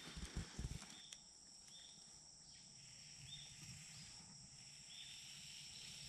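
Faint insects chirring in a steady high drone, with a short higher chirp three times about every second and a half. A few low thumps in the first second.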